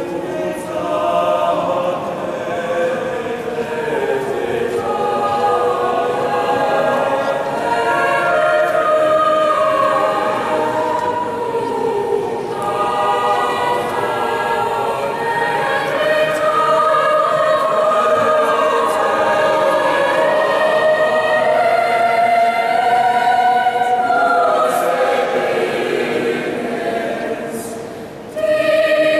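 Mixed youth choir of teenage boys and girls singing sustained chords in a stone cathedral. The singing dips briefly near the end, then comes back in.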